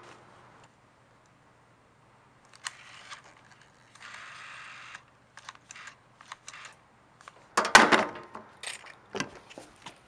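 Plastic clicks and knocks from handling a rotary-dial telephone as its handset is lifted off the base and turned in the hand. A steady noisy sound lasts about a second around four seconds in, and a louder clatter comes near eight seconds.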